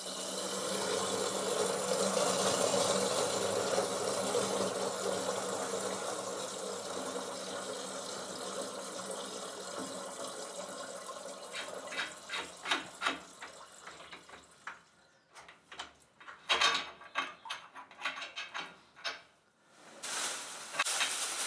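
Water rushing out through the opened relief valve of a hand pressure-test pump back into its tank, letting the pressure off a water line that has just passed its leak test. The flow fades gradually over about ten seconds. After that comes a run of irregular clicks and knocks.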